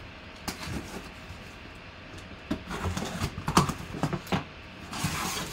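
A knife slicing through the packing tape on a cardboard box, then the cardboard flaps pulled open: scattered sharp clicks and knocks, with a stretch of cardboard rustling near the end.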